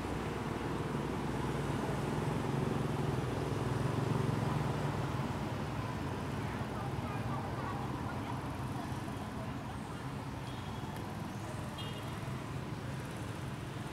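A low rumble over steady outdoor background hiss, swelling about four seconds in and then slowly fading, with two brief high chirps near the end.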